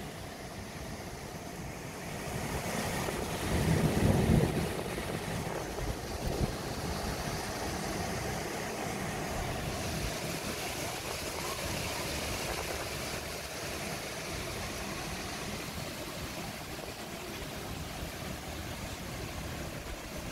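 Heavy rain pouring down in a gusting wind: a steady, even hiss. A louder low rumble swells about four seconds in.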